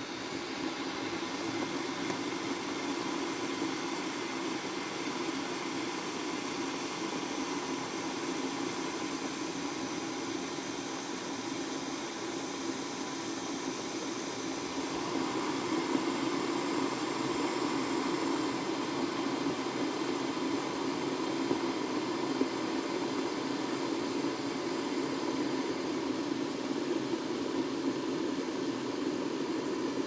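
Glass electric kettle heating water toward a rolling boil: a steady rushing rumble that grows louder about halfway through.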